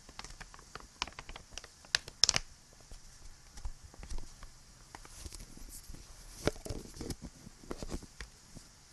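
Close-miked fidgety handling of small objects: irregular taps, clicks, scratches and crinkles, loudest in a quick cluster about two seconds in, over a steady background hiss.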